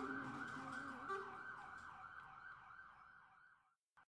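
Ambulance siren sound effect: a fast rising-and-falling wail, fading steadily and stopping shortly before the end.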